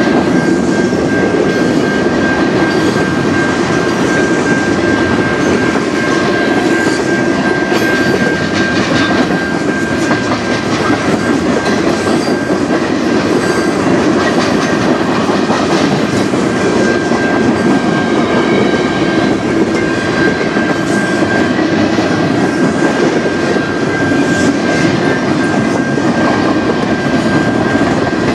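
Freight cars of a manifest train rolling past close by, a steady rumble and clatter of steel wheels on the rails. A thin, steady high-pitched tone runs through it.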